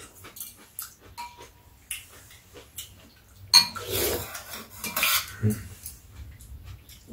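Metal spoons and chopsticks clinking and scraping against ceramic bowls during a meal, in a string of light clicks. About halfway through a sharp clack starts a louder, noisier stretch of about a second and a half.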